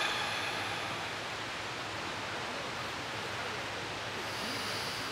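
A man's drawn-out voiced exhale from a qigong Healing Sounds practice fades out about a second in, over a steady breathy hiss. A faint higher hiss comes near the end.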